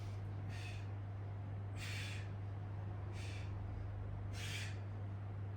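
A person breathing audibly with effort, four airy breaths about a second and a half apart, while holding a core-strengthening exercise. A steady low electrical hum runs underneath.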